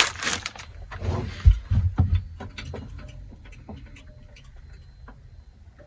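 Small objects being handled and shifted: scattered light clicks and knocks, with two dull thumps about a second and a half and two seconds in, then only sparse faint ticks.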